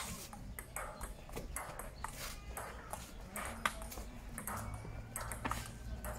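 Table tennis rally: the celluloid ball clicks sharply off the bats and the outdoor table in an irregular run of hits.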